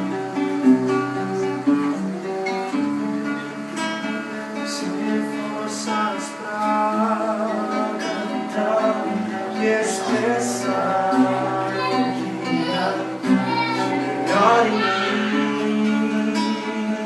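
Acoustic guitar strumming a hymn, with a voice singing along.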